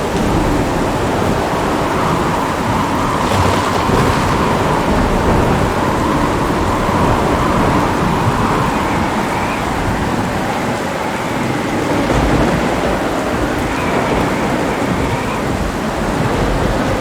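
Heavy rain falling steadily, with low rumbling thunder underneath.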